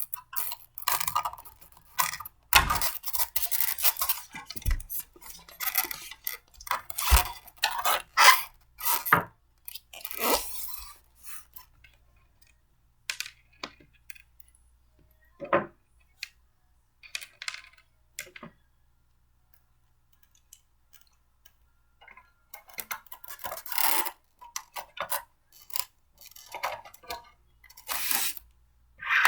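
Blender parts being handled and fitted together by hand: irregular clicks, knocks and scrapes as pieces are picked up, set down and joined. Busy for the first ten seconds, sparse with a short quiet spell in the middle, busy again near the end.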